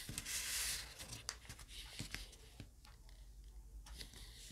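Red origami paper being folded and creased by hand: a crisp rustle for most of the first second, then faint scratchy rustles and small clicks as the flaps are pressed and tucked.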